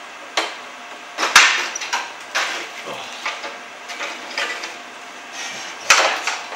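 Thin aluminium plate clanking and rattling against the slats of a CNC plasma table as the cut plaque and loose cut-out pieces are lifted from the sheet: a string of sharp metallic knocks, the loudest about a second in and another near the end.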